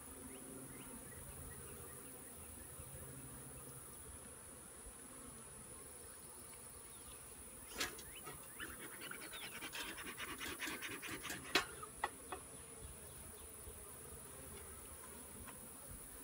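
Honeybees buzzing steadily around an open nuc box. From about eight seconds in, a quick run of clicks and scrapes as a wooden frame is worked loose from the box, with two sharper cracks standing out.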